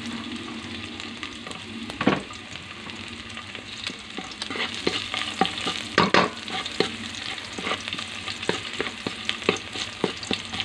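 Minced garlic sizzling in hot oil in a metal wok while a wooden spatula stirs it, knocking and scraping against the pan. There is a sharp knock about two seconds in, and frequent spatula clicks from about halfway.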